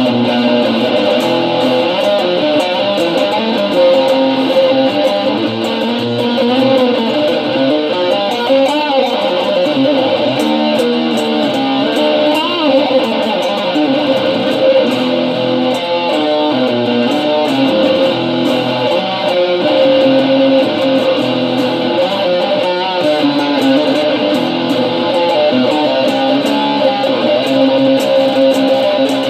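Guitar played continuously in an improvised passage, with notes and chords held and changing throughout.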